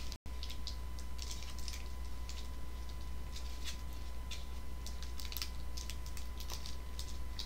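Plastic candy-bar wrapper crinkling in short, irregular crackles as fingers pick and pull at it, struggling to get it open.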